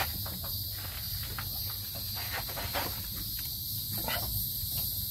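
Scattered light clicks and scrapes of a serpentine belt and a breaker bar on the belt tensioner as the tensioner is levered forward to slacken the belt, over a steady high chirring of insects.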